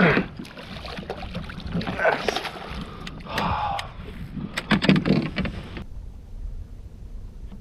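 Water sloshing and splashing with irregular knocks and clicks against a fishing kayak's hull and gear. A little under six seconds in, this stops abruptly and gives way to a low, steady wind rumble.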